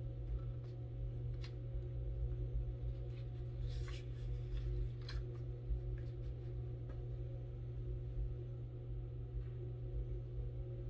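Printed transfer paper being handled and cut on a slide paper trimmer: a few light clicks and a short paper rustle about four seconds in, over a steady low hum.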